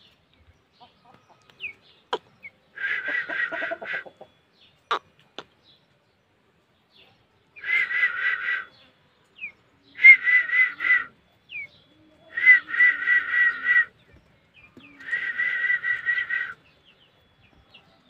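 A bird trilling in five short bursts of about a second each, each a rapid run of pulses on a steady pitch, with a few short falling chirps and a couple of sharp clicks between them.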